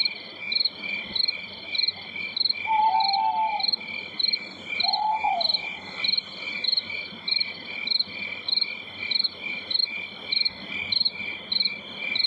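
Night ambience of crickets chirping in an even, quick rhythm over a steady high trill, with two or three short, lower calls about three and five seconds in.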